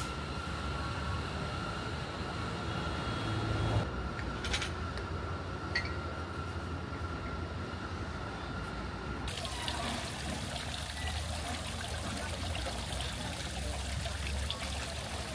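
Steady rush of running water with a low hum underneath; the background changes abruptly about nine seconds in.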